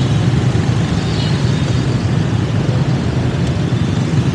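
Steady road and engine noise of a vehicle on the move, a constant low rumble with no distinct events.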